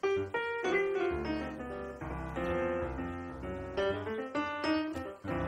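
Background keyboard music: a melody of short piano-like notes over a bass line.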